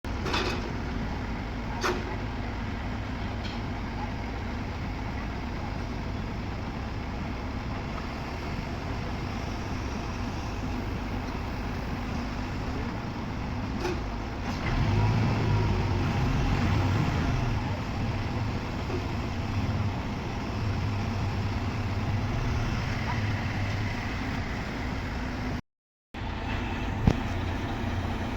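Heavy construction machinery engine running steadily, rising in strength for a few seconds about halfway through, with a few sharp metallic knocks.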